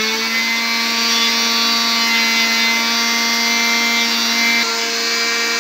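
Hyundai blender motor running steadily at full speed, grinding cumin seeds to powder in its small plastic grinder jar: an even, high motor hum over the rush of the spinning blades and seeds.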